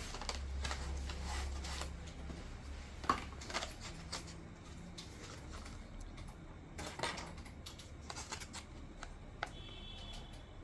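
Clicks and rustles of computer-part boxes and packaging being handled, with one sharp click about three seconds in and a run of clicks around seven seconds, over a steady low hum.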